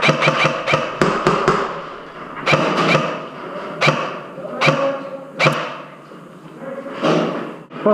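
Airsoft guns firing. A rapid string of sharp cracks comes in the first second, then single shots and short pairs follow about every second, with a pause near the end.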